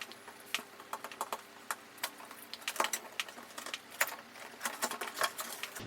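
Irregular light clicks and crackles of packaging being handled as a boxed ring light kit is unpacked.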